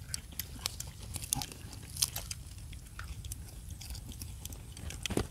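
Someone eating fish by hand, with faint chewing and scattered small clicks and crunches.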